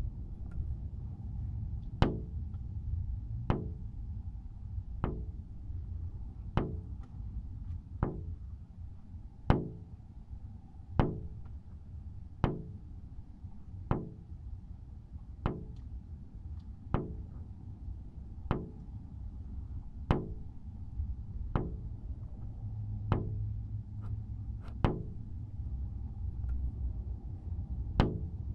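Sharp knocks, each with a short ring, evenly spaced about every one and a half seconds, over a steady low rumble.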